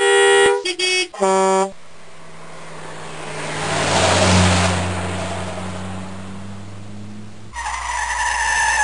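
Car engine sound effect: a car driving past, growing louder to a peak about four seconds in and then fading away. It is preceded by a few short tooting notes at the start.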